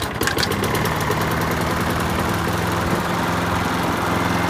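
Briggs & Stratton lawnmower engine catching after three primes, firing unevenly for about a second, then settling into a steady run. It sounds pretty weak, and the owner thinks the spark plug may need replacing.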